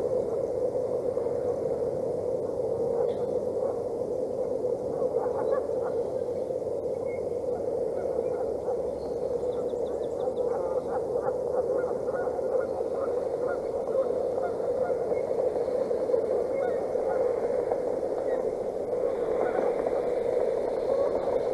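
Frogs calling in a chorus, in repeated pulsed trills, over a steady noise.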